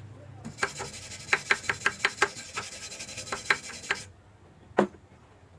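Stick-welding arc on a 6013 electrode at about 100 amps: a steady crackling hiss with sharper pops running through it. It starts abruptly and cuts off after about three and a half seconds as the arc is broken, and a single click follows about a second later.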